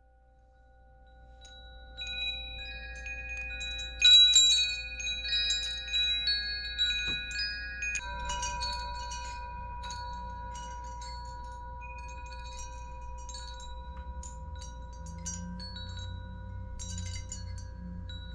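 Metal tube wind chimes ringing, several tubes struck over and over so their tones overlap. The strikes come thickest about four seconds in, then thin out while one tone rings on from about eight seconds.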